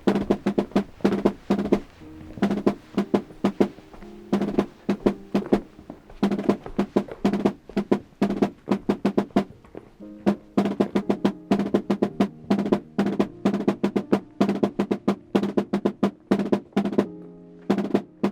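Holy Week drums beaten with sticks in a fast, driving rhythm with rolls, many strokes a second with only brief pauses.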